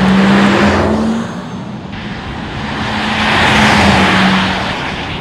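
Porsche Taycan Cross Turismo electric car driving past twice: tyre and road noise with a steady hum swells at the start, fades after about a second and a half, and swells again about three to four seconds in.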